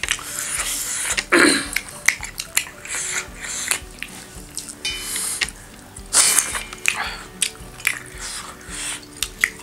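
Close-up eating sounds of millet dhido and dried meat eaten by hand: chewing, lip-smacking and fingers squishing food against a brass plate, heard as many short clicks and wet bursts. Faint background music plays underneath.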